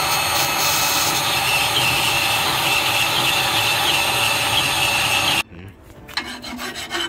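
Portable band saw cutting through a steel bracket, a steady loud run with a wavering whine that stops abruptly about five seconds in. Near the end, a run of hand-file strokes rasping on steel.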